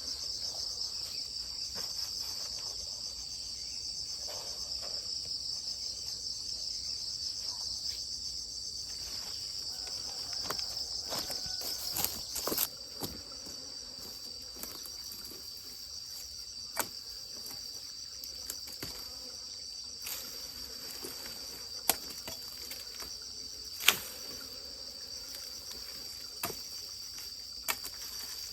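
Steady, high-pitched chorus of insects chirring without pause. A few sharp clicks or knocks cut in here and there; the loudest comes near the end.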